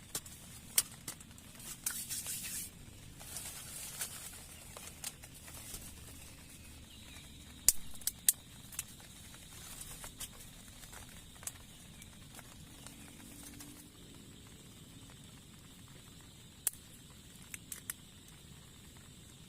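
Scattered sharp taps and clicks, a few of them loud, with two short bursts of rustling about two and three and a half seconds in, over a faint steady background hiss.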